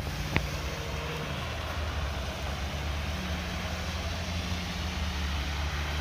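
Street traffic: vehicle engines running with a steady low hum and road noise, and a single short click about half a second in.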